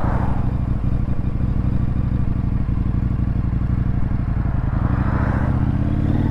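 Indian FTR 1200's V-twin engine running steadily at low road speed. Near the end its pitch starts to rise as the motorcycle accelerates out of a turn.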